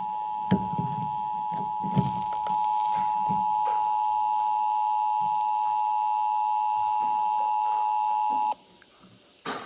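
Emergency Alert System two-tone attention signal, two steady tones sounding together, the alert tone that comes before a relayed warning message. It lasts about eight and a half seconds and cuts off suddenly, with faint clicks underneath at first and a sharp click near the end.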